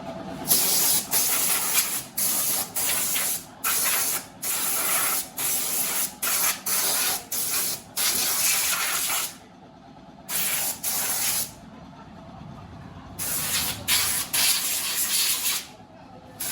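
Compressed-air spray gun hissing in repeated short blasts while it sprays oil onto a motorcycle: a quick run of bursts, a pause of about a second, a couple more, then another cluster after a longer pause.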